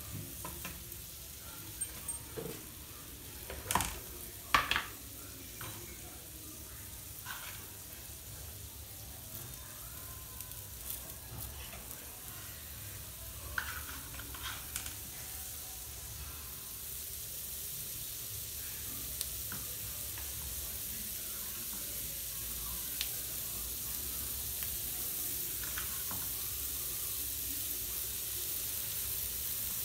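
Chopped onions and tomatoes frying in melted butter on a flat tawa, giving a steady sizzle that grows a little louder in the second half. A few sharp knocks and clicks come in the first fifteen seconds, the loudest about four to five seconds in.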